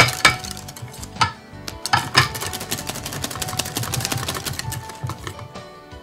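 Wire balloon whisk beating thick whipped cream in a glass bowl: a fast run of strokes clicking and scraping against the glass, with a few louder knocks in the first couple of seconds. Soft background music plays underneath.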